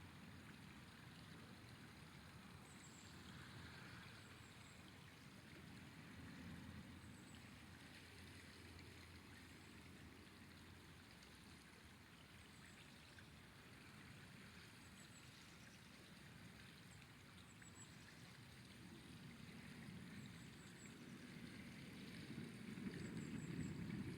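Faint, steady rush of a flowing river. A low rumble swells over the last few seconds.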